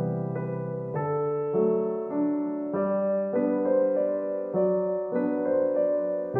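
Background music: a soft solo piano piece, its notes and chords changing about every half second.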